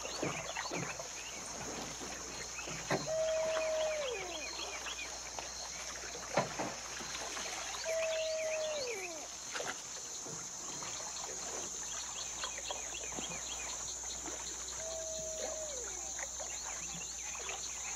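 Night swamp sounds: a steady high insect drone with many fast small ticks, and three times a drawn-out animal call that holds one pitch and then slides down. A few sharp knocks come in between.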